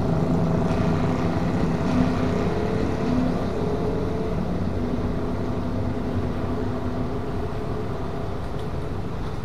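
Road traffic: motorcycle and car engines running as they drive over a railway level crossing, slowly getting quieter.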